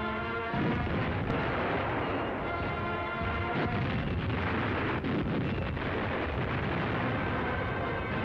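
Music played over the noise of battle: booming gunfire and shell explosions, with a few sharp bangs standing out above a steady roar.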